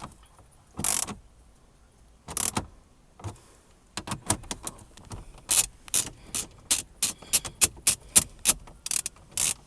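Ratchet wrench with a 10 mm socket tightening a bolt down: two short bursts, then from about four seconds in a run of sharp ratchet clicks, several a second.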